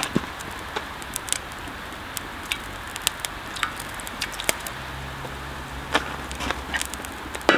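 Wood fire burning in a small steel barrel stove, crackling with sharp irregular pops over a steady rush of flame. A low steady hum joins briefly about five seconds in.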